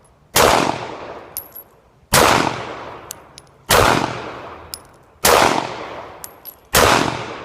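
Glock 19 9mm pistol fired slowly, five single shots about a second and a half apart, each with a long echoing tail. Light metallic ticks follow most shots.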